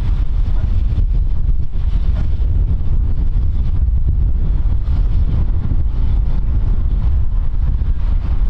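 Wind buffeting the microphone with a steady, heavy low rumble, over a steam locomotive, BR Standard Class 4MT 4-6-0 No. 75014, running slowly into the station.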